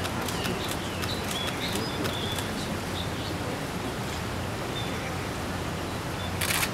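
Steady outdoor background hiss with faint, short, high chirps from small birds, a run of sharp ticks over the first two seconds or so, and a brief loud rush of noise near the end.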